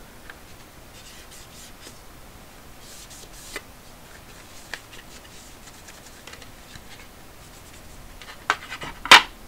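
A wipe being rubbed over the plastic case of a Casio fx-7400G Plus graphing calculator: faint scratchy rubbing with a few small clicks. Near the end come two sharp plastic knocks, the second the loudest, as the calculator is set down on the desk.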